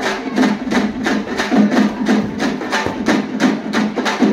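Steady rhythmic drumming, about four strokes a second.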